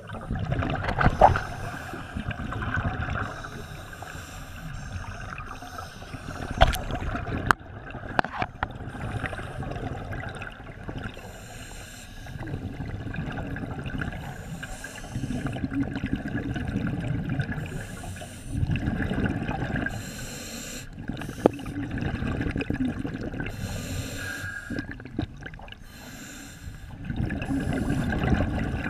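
Scuba diver breathing through a regulator underwater: hissing inhalations alternate with low, rumbling bursts of exhaled bubbles every few seconds. A couple of sharp knocks come in the first third.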